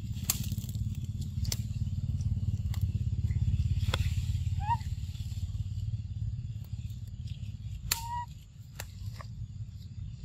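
A steady low motor-like rumble, strongest in the middle, with scattered crackles and snaps of dry twigs and leaves. A short squeaky call comes about halfway through and another near the end.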